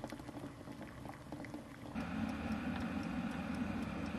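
Water boiling with eggs in a saucepan, a crackly bubbling of many small pops. About two seconds in it gives way to a glass electric kettle at a rolling boil, louder and fuller.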